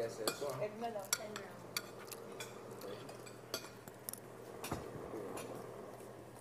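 Spoons and forks clinking and scraping on plates during a meal, a scattering of sharp separate clinks.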